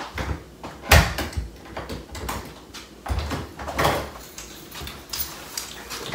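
Apartment front door being unlocked and opened: a series of sharp clicks and knocks from the lock, latch and door, the loudest about a second in.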